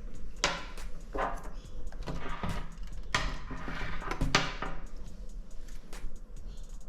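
Packaging rustling and parts being handled: about five short swishes of wrapping with small clicks and knocks between them.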